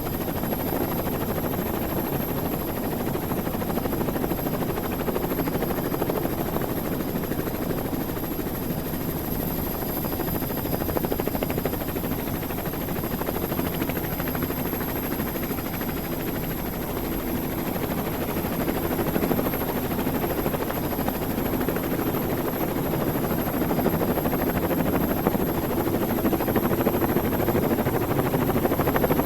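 Helicopter running continuously, the steady chop of its rotor blades over the turbine noise, growing slightly louder about two-thirds of the way through.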